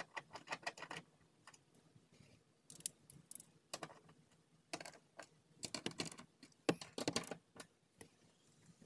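A socket ratchet clicking rapidly and evenly for about the first second as a bolt is turned, then irregular clicks and clinks of metal hand tools being handled and set down on the car floor.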